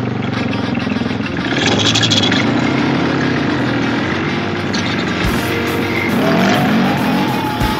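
1998 Yamaha Blaster's 195cc two-stroke single-cylinder engine running under a rider, its pitch rising and falling as the throttle is worked.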